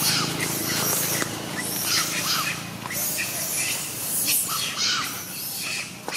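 Long-tailed macaque screaming in a string of short, shrill cries, about one a second, while pinned down by another macaque: distress screams of a monkey being attacked.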